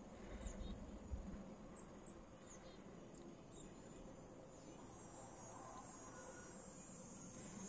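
Faint, steady high trilling of crickets or other summer insects, with a few short high bird chirps in the first two seconds and a soft low bump about a second in.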